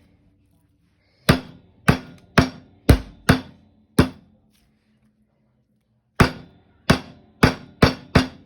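Thin-sliced chicken breast being pounded flat under plastic wrap on a cutting board: sharp thuds about two a second, a run of six, a pause of about two seconds, then five more.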